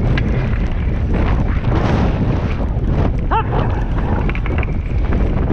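Wind buffeting the microphone over the rumble of wheels rolling on a gravel track, pulled at speed by a two-dog sled team. A brief whine rises and falls about three seconds in.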